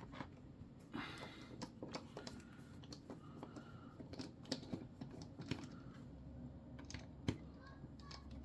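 Small T8 Torx screwdriver backing out the tiny side screws of a Microtech Scarab 2 OTF knife: faint, irregular clicks and scrapes of the driver bit in the screw heads, with the knife being handled.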